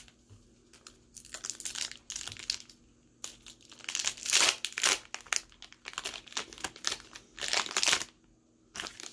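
Foil wrapper of a Pokémon Guardians Rising booster pack being torn open and crinkled by hand, in irregular rustling strokes that stop near the end.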